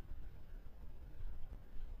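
Faint sloshing of lake water as a dark garment is scrubbed by hand under the surface, over a steady low rumble.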